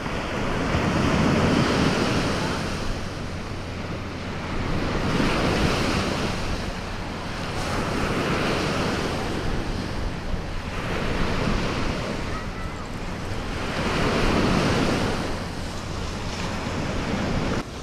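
Surf washing onto the beach, swelling and easing about every three seconds, with wind buffeting the microphone.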